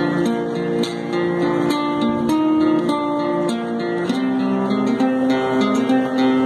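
Solo classical guitar, fingerpicked: a melody of plucked notes over lower bass notes, played without a break.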